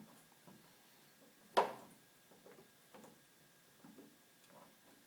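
Quiet handling of hand tools and plastic parts: one sharp snap about a second and a half in, then a few faint clicks and knocks, as snips are worked at a zip tie inside a vacuum cleaner's housing.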